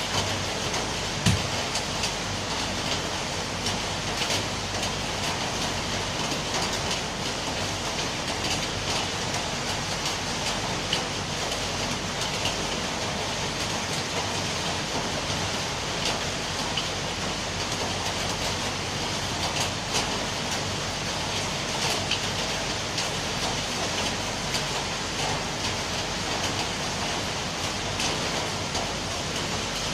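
Steady, heavy rainfall, with many individual drops ticking on surfaces. A single low thump sounds about a second in.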